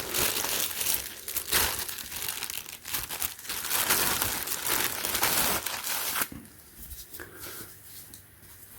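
Plastic bag crinkling as it is handled, stopping about six seconds in, after which only faint soft rustles remain.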